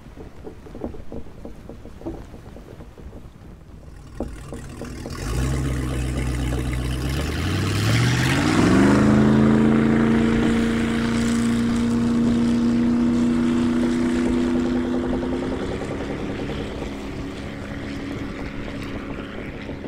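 Amphibious tour boat's engine running as it passes. The engine hum climbs in pitch about eight seconds in, holds steady, then fades near the end. Wind buffets the microphone throughout.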